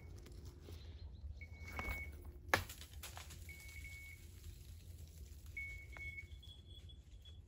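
A hunting dog's beeper collar sounding short, steady high beeps about every two seconds, shifting to a higher-pitched beep near the end, over a low rumble and rustling brush. A sharp click about two and a half seconds in.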